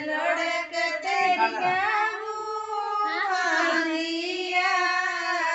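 A woman's high voice singing a slow melody with long held, gliding notes.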